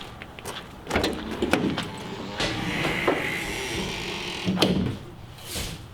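A few knocks, then a sliding door running along its track for about two seconds and ending in a sharp clunk.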